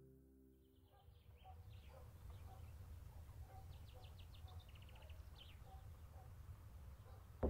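Faint birds chirping, with a quick trill a few seconds in, over a steady low outdoor rumble.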